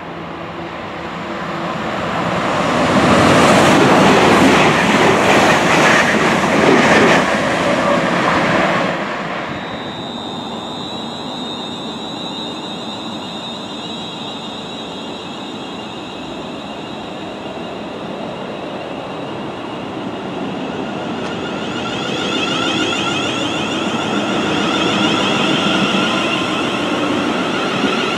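London Northwestern Railway Class 350 Desiro electric multiple unit coming into the platform. Its wheels and running gear make a loud rush with a clickety-clack for several seconds, then settle into a steady high whine from the train's electrics. In the last few seconds the whine grows louder and busier.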